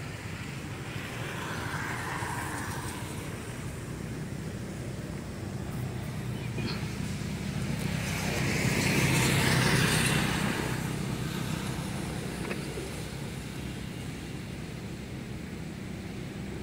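A motor vehicle's steady low rumble, swelling to its loudest about nine seconds in as it passes and then fading again.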